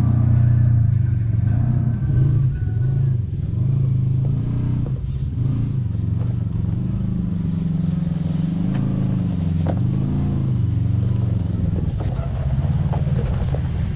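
Kawasaki Teryx KRX 1000's parallel-twin engine running at low revs, its pitch rising and falling again and again with the throttle as it crawls over rock, with a few brief knocks along the way.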